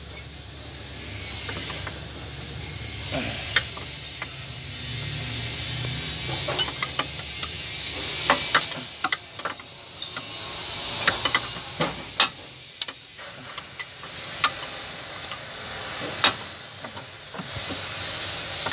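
Wrench working the nut on a truck's cab-tilt hydraulic cylinder mount: scattered sharp metallic clicks and clinks of tool on metal, with a steady hiss through about the first eight seconds.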